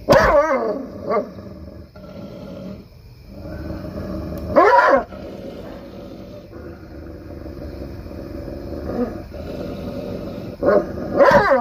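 Muzzled Anatolian Shepherd growling, with three loud barks: one at the start, one about four and a half seconds in, and one near the end. This is the aggressive display she shows toward her trainer.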